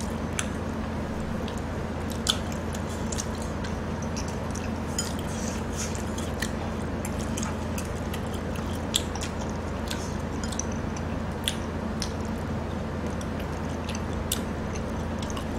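Close-miked eating sounds: chewing and biting, with short sharp clicks here and there. A steady low hum runs underneath.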